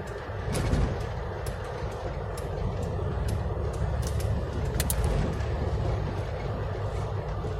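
Steady rumble of vehicle traffic on a road, with a few louder swells and scattered sharp clicks and ticks.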